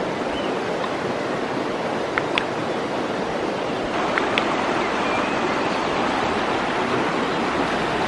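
Steady rush of running water, with a few brief high chirps about two and four seconds in.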